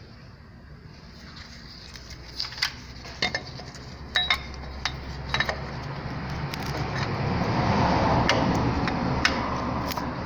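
Metal hand tools and engine parts clinking and tapping, about a dozen sharp clicks spread through, over a steady rushing noise that swells from about four seconds in and is loudest near eight seconds.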